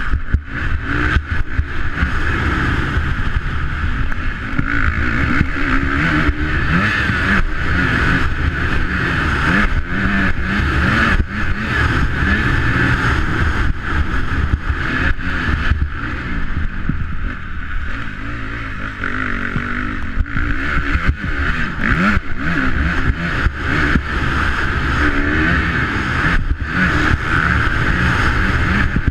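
Motocross bike engine at race pace, its revs rising and falling as the rider accelerates and shifts. Frequent short knocks from the bike crossing the bumpy dirt track run through it.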